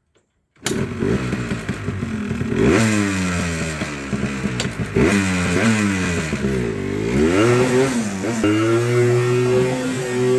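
Yamaha Blaster 200 ATV's single-cylinder two-stroke engine being ridden, starting suddenly about half a second in. Its pitch rises and falls several times as the throttle is worked, then climbs about eight seconds in and holds steady. The engine has a freshly cleaned carburetor, and the owner says it is running great.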